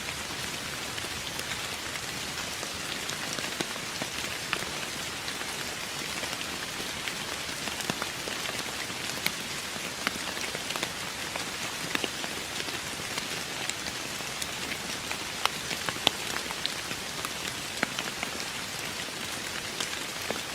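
Steady rain falling, an even hiss with individual drops ticking sharply here and there as they hit a surface.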